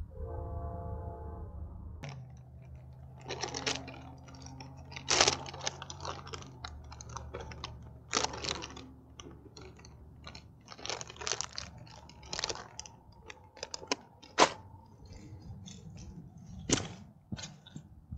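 A short buzzy tone, then a long run of irregular close clicks and crunches, a few of them sharp and loud, over a faint low hum.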